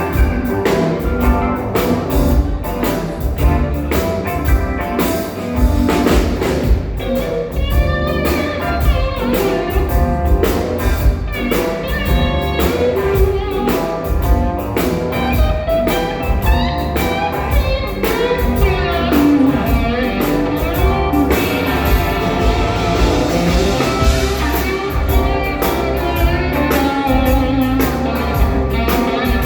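A band playing a blues-rock number at a sound check: drum kit, guitar and a singing voice, loud and unbroken.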